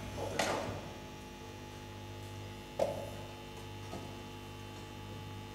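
Steady electrical mains hum carried through the church sound system, with a brief knock about three seconds in.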